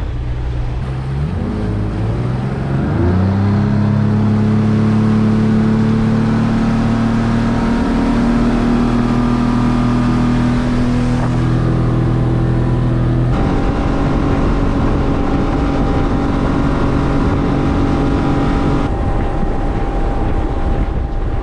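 Yamaha F250 four-stroke V6 outboard accelerating out of idle, its pitch rising over the first few seconds, then running steady at cruising speed. Hull and wind noise sit under the engine note.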